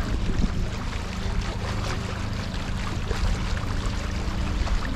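A small yacht's outboard motor running steadily under way, with water rushing and splashing along the hull.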